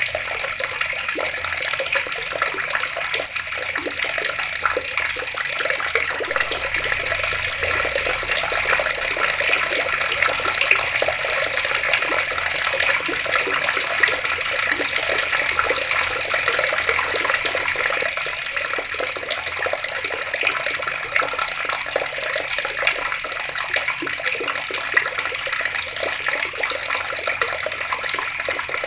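Water tap running outdoors, a steady stream of water splashing and gurgling without a break.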